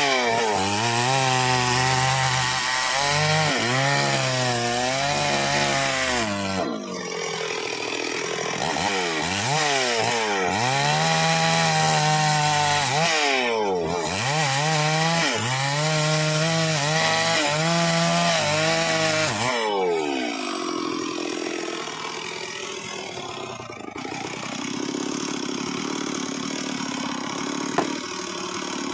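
Two-stroke chainsaw cutting into a teak log, its engine pitch repeatedly rising and falling as it labours in the cut, with brief let-offs about 7 and 14 seconds in; the blunt chain makes the cutting hard. About 20 seconds in the saw drops to a lower, quieter idle.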